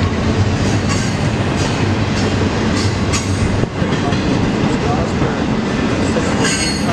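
Intermodal freight cars rolling past at speed: a steady, loud rumble of steel wheels on rail, with a few sharp wheel clicks at irregular intervals.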